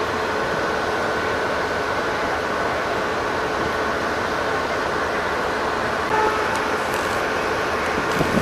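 Steady mechanical hum of a train with two steady tones running through it. A brief short tone sounds about six seconds in, and a low thump comes near the end.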